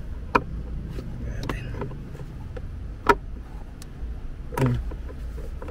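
A few sharp separate clicks and knocks of a screwdriver and hands against the car's plastic center console trim, the loudest about three seconds in, over a low steady hum.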